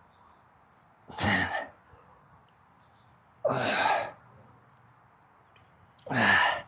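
A man's hard breathy grunts as he exhales with the effort of seated calf raises, three of them about two and a half seconds apart, one per rep.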